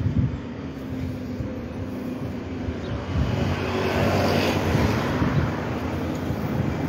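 Single-deck London bus engine running as the bus pulls in to the stop, with steady traffic noise and a car passing about four seconds in.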